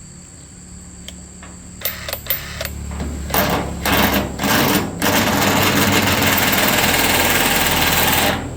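A machine running with a steady low hum, overlaid by a harsh, hissing mechanical noise that comes in short bursts, then runs loud and steady for about three seconds and cuts off suddenly.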